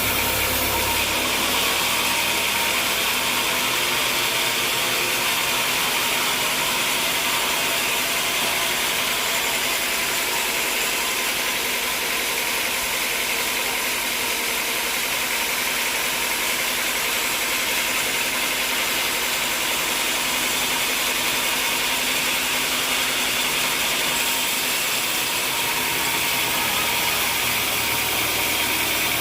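Sawmill machinery running steadily, a dense mechanical noise with a constant hum. The deepest part of the hum drops away about a second in and comes back near the end.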